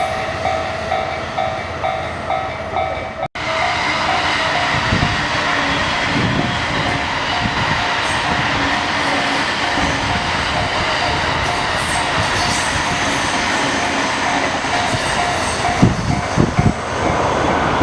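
Japanese level crossing's electronic warning bell ringing in a steady, evenly repeating beat while a JR electric train runs past over the crossing, its wheels rumbling on the rails. The sound cuts out for an instant about three seconds in.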